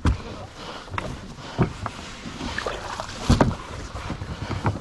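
A kayak hull knocked and bumped as someone climbs aboard and settles in, a handful of sharp thumps with the loudest about three seconds in.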